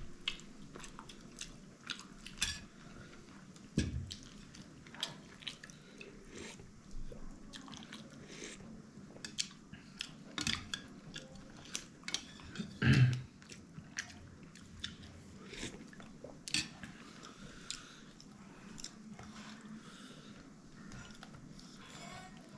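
Close-up eating sounds: chewing and biting, with cutlery clinking against dishes in scattered short clicks, one louder knock about 13 seconds in.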